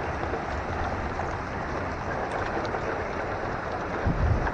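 Steady thunderstorm rain falling after the hail has stopped. A brief low rumble near the end.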